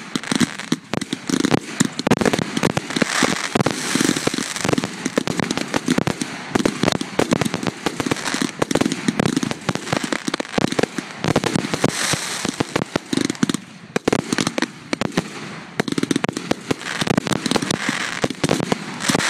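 Fireworks finale: a continuous, rapid barrage of shell bursts and crackling with many sharp bangs a second and no letup.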